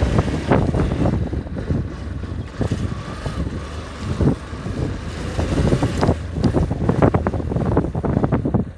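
A vehicle on the move, with wind buffeting the microphone and irregular knocks and rattles throughout, busiest near the end.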